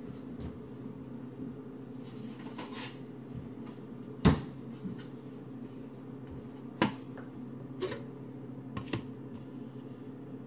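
Kitchen handling sounds over a steady low hum: a sharp knock about four seconds in, then a few lighter clicks and taps as a paper plate is handled and a waffle is taken out of the toaster.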